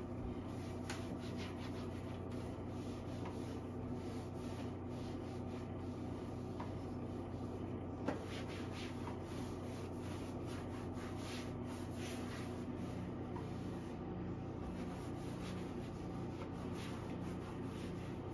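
A cloth rubbing in repeated wiping strokes inside a kitchen drawer, with one light knock about eight seconds in, over the steady hum of a washing machine running.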